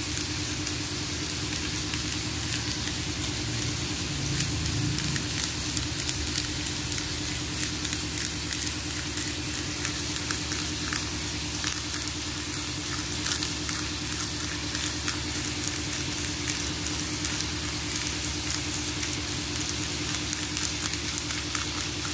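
Bacon-cut pork belly slices sizzling in hot oil in a non-stick frying pan: a steady sizzle with frequent small crackles and pops. A steady low hum runs underneath.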